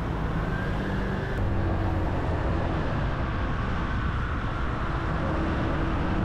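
Motorbike running at riding speed, with wind and road noise over the microphone: a steady, even rumble with no sudden events.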